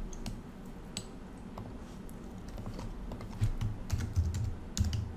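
Scattered keystroke clicks on a computer keyboard, a few at first and then a quicker cluster of them in the second half.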